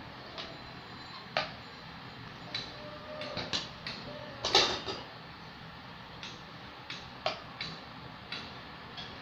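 Hands handling craft paper and a pen: scattered small clicks and taps, with a brief louder rustle about four and a half seconds in, over a faint steady hum.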